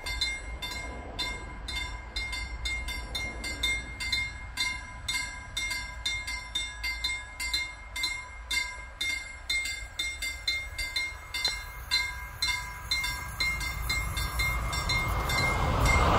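Level-crossing bells (KLD-4315 electronic bells) ringing rapidly at about three strikes a second, warning that a train is due. Near the end the rising rumble of an approaching Rc6 electric locomotive and its train grows loud.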